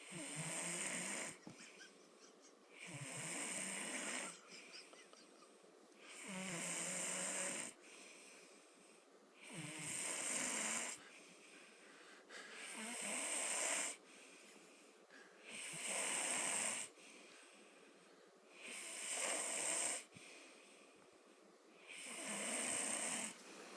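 A man snoring in deep sleep: a steady rhythm of long, rasping snores, about one every three seconds, with quieter breaths between.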